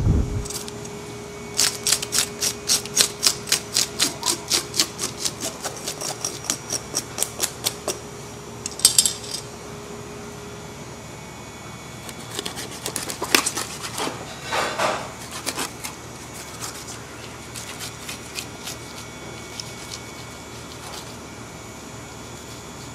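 A mullet being scaled with a hand scaler: quick, evenly spaced scraping strokes, about three a second, for several seconds. Then a cleaver cutting into the fish on a wooden chopping block, with a few sharp knocks and scrapes and lighter scraping near the end.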